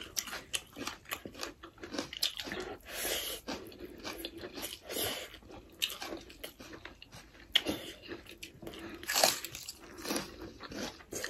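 Close-up crunching and chewing of raw red bell pepper: a run of irregular, crisp bites and crunches, a few of them louder, with wet chewing in between.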